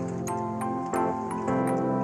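Instrumental background music: sustained notes, with new notes coming in three times.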